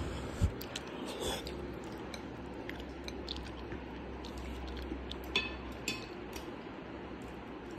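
A metal spoon knocking and scraping against a ceramic plate of baked beans and scrambled eggs, a few short clicks with the loudest knock about half a second in, along with chewing.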